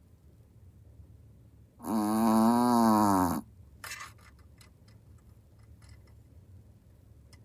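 Boston terrier snoring in its sleep: one loud, drawn-out snore about two seconds in, lasting about a second and a half, followed by a run of faint clicks.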